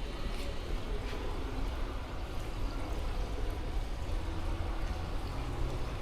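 Steady rushing noise over a deep rumble, with a few faint clicks in the first second or so.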